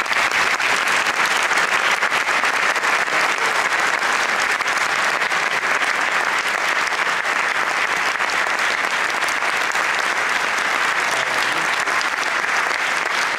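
An audience applauding, with steady, dense clapping that holds an even level.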